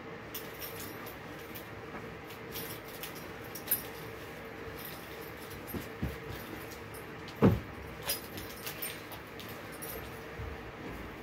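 Room-cleaning handling noises: scattered light clinks and rustles over a steady hum, with one loud thump about seven and a half seconds in and a smaller knock just after.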